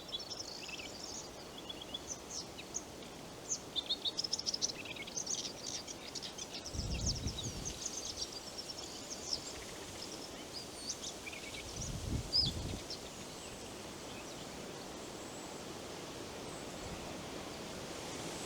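Forest ambience: small birds chirping in quick twitters for most of the first two-thirds, over a steady hiss of wind in the trees. Two low, muffled thumps, one a little over a third in and one about two thirds in.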